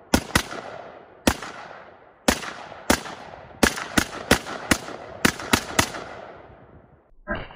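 Rapid semi-automatic fire from a 7.62x39 rifle: about a dozen sharp shots in quick, uneven strings, each trailing off in an echo, stopping about six seconds in.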